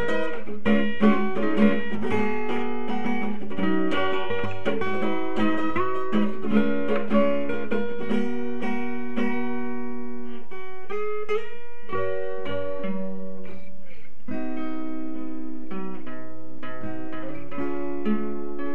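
Background music: an acoustic guitar picking a steady run of plucked notes.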